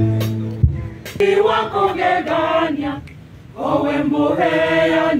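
An electronic keyboard's organ chord dies away, then a church choir of men and women sings unaccompanied: one phrase, a short breath about three seconds in, then the next phrase.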